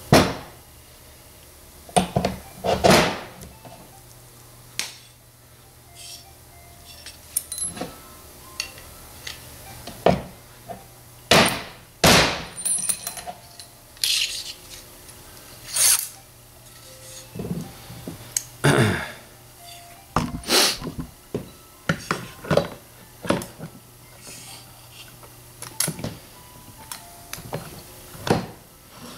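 Steel parts of a riding-mower transmission being handled and fitted by hand: irregular clunks, clinks and short scrapes of metal against the transmission case as the axle shaft is set in.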